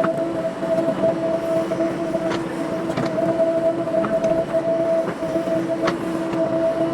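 JCB backhoe loader working: its diesel engine and hydraulics run with a steady whine, and a few sharp knocks come through.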